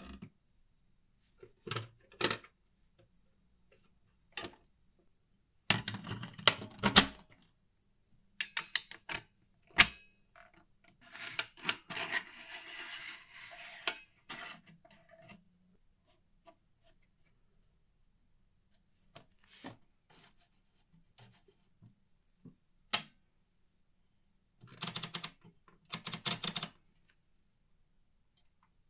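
Clicks and rattles from the mechanism of a 1949 Olympia typewriter being worked by hand: scattered single clicks, two short bursts of rapid clicking, and a few seconds of rubbing about a third of the way in.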